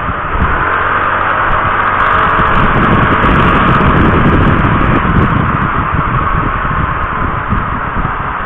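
Steady rush of wind over an action camera's microphone on a moving motorcycle, with engine and road rumble underneath.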